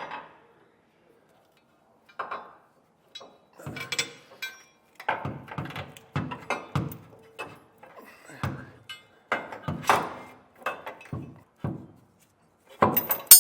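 Steel Curt fifth-wheel frame bracket knocking and scraping against the truck's frame rail as it is worked up into place, a string of irregular thunks and clanks, with a louder one near the end.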